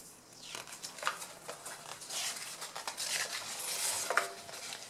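A paper page of a large picture book being turned by hand: soft rustling with a run of light crackles and ticks as the sheet is handled and laid flat.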